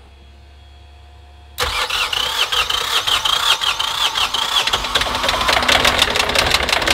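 A three-cylinder marine diesel engine catches suddenly about one and a half seconds in, after a faint low hum, and runs loud and rough, with a high repeating chirp over it for the next few seconds. The owner takes the rough running for a missing cylinder, and later suspects a stuck valve or lifter.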